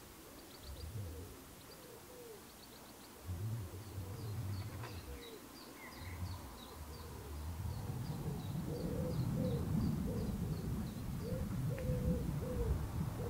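A pigeon cooing in a run of low repeated calls, with a small bird's high quick chirps above it. Under them a low rumble builds through the second half as a diesel locomotive approaches along the line.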